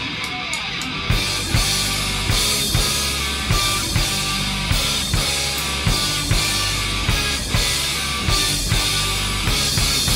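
Live ska-punk band playing an instrumental passage: electric guitar, with the full drum kit coming in about a second in on a steady, fast beat.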